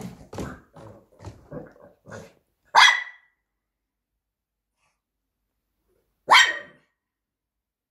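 Small dog growling in a quick run of short grumbles, about three a second, then barking sharply twice, about three and a half seconds apart, worked up over a piece of food on the floor in front of it.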